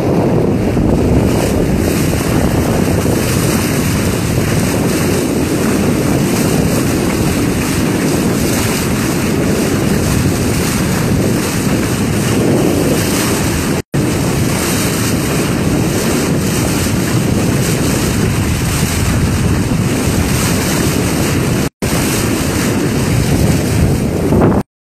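Steady wind buffeting the microphone over the rush of water past a sailboat's bow while under way. The sound cuts to silence for a split second three times: about 14 and 22 seconds in, and just before the end.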